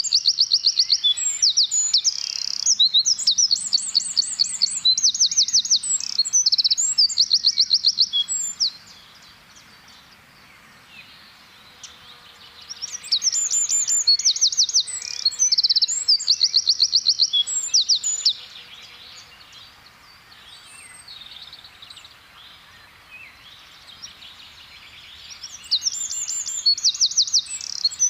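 Eurasian wren singing: three bursts of loud, rapid, high trills, each several seconds long, with quieter pauses between them.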